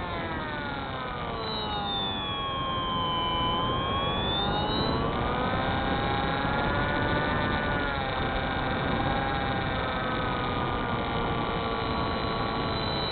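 Spyhawk FPV model plane's electric motor and propeller whining in flight, the pitch sinking over the first few seconds, then climbing back and holding fairly steady as the throttle changes, over a steady rushing noise.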